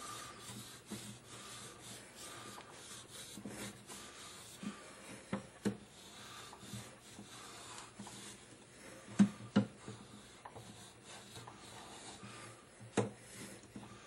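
A burnisher rubbed in repeated strokes over a thin brass blank, pressing it around a mandrel to close the seam of an aiglet. A few sharp clicks of the tool striking the metal stand out: two near the middle, two a little later, and one near the end.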